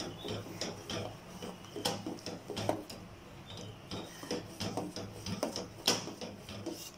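Metal spoon stirring mango paste into agar-agar liquid in a stainless steel bowl, scraping and clinking irregularly against the sides, with a sharper clink near the end.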